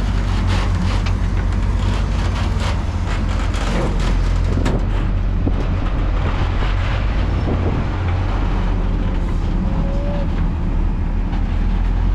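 Heavy diesel dump-truck engines with loud exhaust pipes running, a steady low rumble with scattered clatter.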